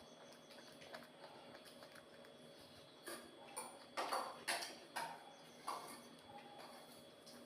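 Close-miked eating sounds: a handful of short bites and chewing noises, bunched between about three and six seconds in, over a faint steady hum.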